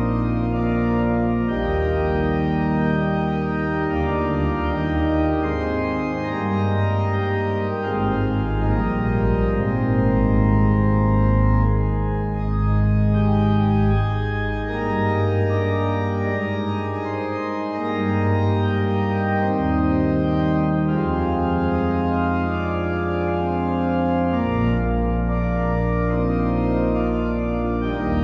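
Organ playing slow, sustained chords over deep bass notes, the harmony changing every few seconds.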